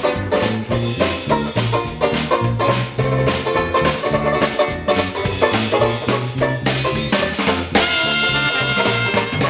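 Upbeat swing-style music with drum kit, a walking bass line and horns, holding a sustained chord near the end.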